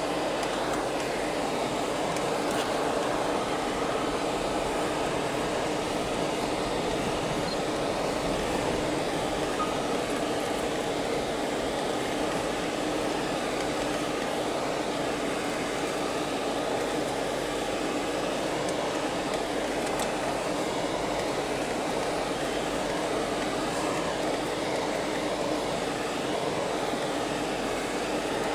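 Steady engine and tyre noise of a four-wheel-drive vehicle driving slowly over gravel and rubble, heard from inside the cabin.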